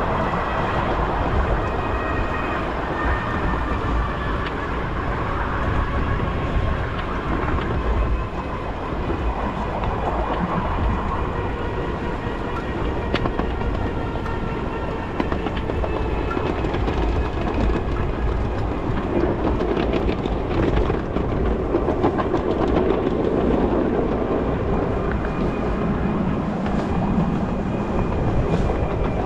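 Ride-on miniature railway train running along the track: a steady rumble of wheels on rail with scattered clicks over the rail joints.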